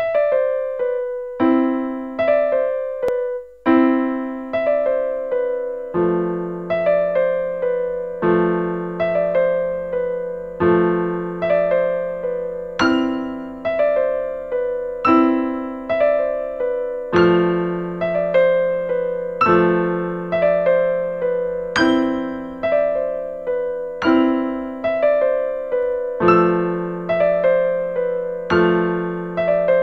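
Solo piano music: single notes struck one after another in a steady, flowing pattern, with a short break about three and a half seconds in.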